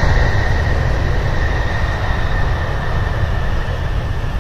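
Twin-engine jet airliner's engines at takeoff thrust during the takeoff roll and lift-off: a heavy, steady rumble with a thin high whine that slowly drops in pitch.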